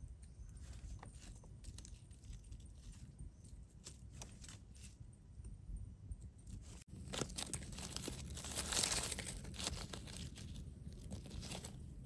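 Dry leaf litter crackling and rustling as hands and a small knife dig mushrooms out of the forest floor. Scattered crackles at first, then denser rustling and crunching in the second half, loudest about nine seconds in.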